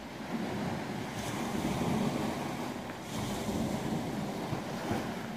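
Wind rumbling on the microphone over the wash of the sea on the shore, swelling and easing every second or so.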